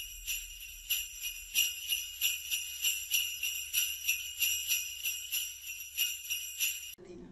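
Sleigh bells shaken in a steady rhythm, about three shakes a second, cutting off suddenly near the end.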